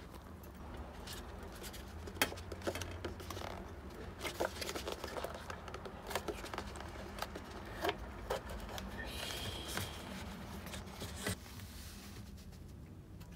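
Irregular clicks, taps and scrapes of objects being handled, over a steady low hum.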